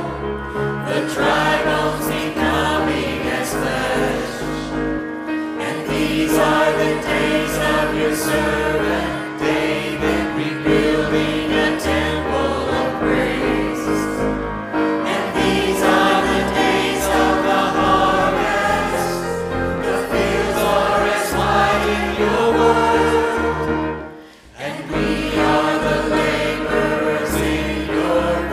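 A choir and congregation singing an upbeat worship song, backed by piano and drums. The music drops out for a moment near the end, then picks up again.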